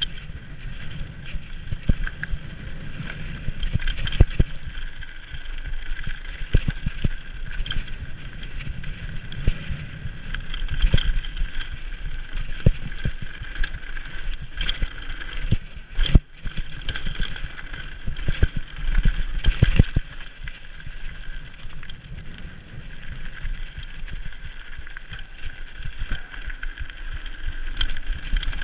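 Mountain bike rolling fast down a loose rocky gravel trail: tyres crunching over stones and the bike rattling, with frequent sharp knocks and clatters as it hits rocks.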